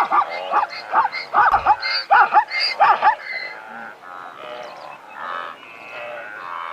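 Zebra calling: a rapid series of loud, pitched barks over roughly the first three seconds, then fainter calls carry on.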